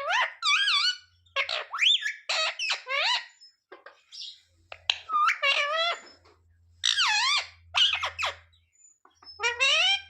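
Indian ringneck (rose-ringed) parakeet calling loudly over and over: short squawks that sweep up and down in pitch, in quick bursts, with a brief lull about four seconds in.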